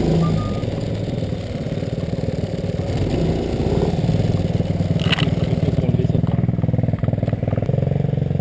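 Off-road buggy's small engine running at low, steady revs, with one sharp clack about five seconds in.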